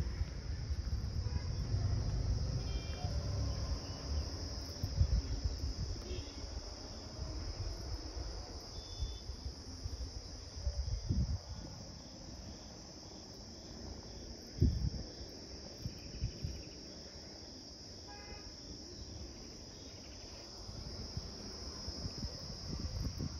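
Steady high-pitched chirring of insects in the surrounding hills, over a low rumble on the microphone with a few soft thumps.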